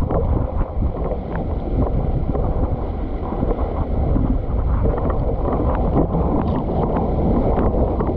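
Wind buffeting the microphone of a boom-mounted camera, over water rushing and splashing against a windsurf board sailing at speed. A steady heavy rumble with short irregular splashes.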